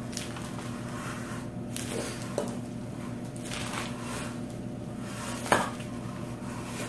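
Tongs tossing pasta salad in a small bowl: soft, wet mixing of dressed pasta with occasional clicks of the tongs against the bowl, the sharpest about five and a half seconds in.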